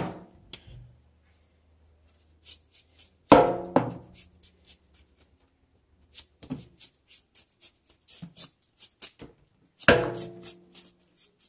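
Kitchen knife peeling a raw yam over a stainless steel sink: a run of short, sharp scraping clicks as the blade cuts away the skin. Two louder knocks, about three and a half and ten seconds in, are each followed by a brief ring.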